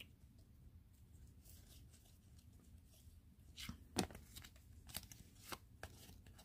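Faint tearing and crinkling of a trading card pack's wrapper being opened, with the sharpest tear about four seconds in and a couple of smaller crackles after it.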